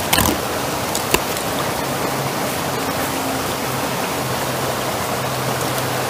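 Creek water running over a small rocky cascade, a steady rush. A few short clicks sound near the start and again about a second in.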